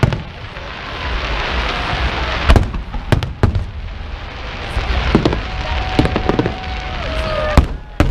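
Aerial fireworks display bursting: a string of sharp bangs, several in quick pairs, over a steady noisy hiss.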